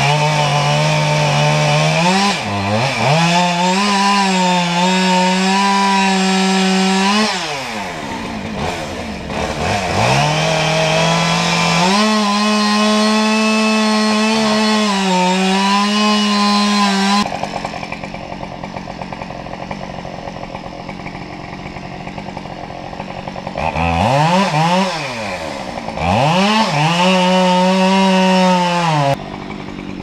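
Two-stroke chainsaw cutting through a tree trunk at its base, held at full throttle in several long bursts of a few seconds each, dropping back toward idle between them.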